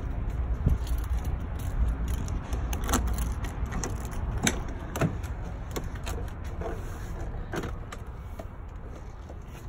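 Clunks and sharp knocks of someone climbing the steps into a Kenworth T800's cab and working the cab door, over a low rumble that fades after the first few seconds.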